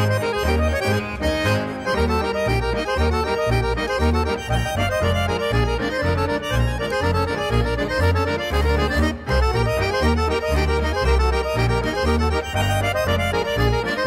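Background music: accordion-led traditional folk dance music, with a bass stepping in a steady beat under a running melody.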